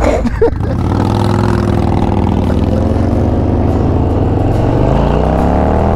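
Harley-Davidson Road Glide's V-twin engine accelerating away from a stop, its pitch climbing steadily, then dropping and climbing again at a shift near the end.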